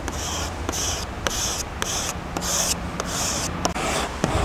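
A plastic card rubbed firmly over vinyl decal transfer tape on a fiberglass canoe hull, pressing the lettering down: a run of short scraping strokes, about two a second.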